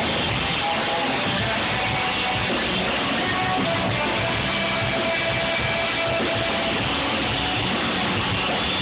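Ska band playing live at full volume, with electric guitars and a horn section in a dense, steady wash of music, heard from within the crowd.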